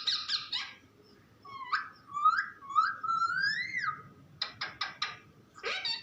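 Pet parrot calling: a quick run of squeaks, then several whistle-like calls that glide up and down in pitch, a few short sharp notes, and another call near the end.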